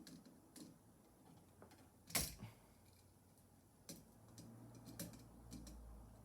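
Faint, scattered clicks and small scrapes of a wire being hooked onto a light switch's terminal by hand, with one sharper click about two seconds in. A low hum comes in near the end.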